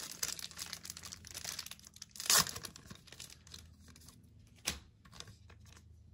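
Rustling and crinkling of trading cards and plastic packaging being handled, with a louder crinkle about two seconds in and another sharp one near five seconds.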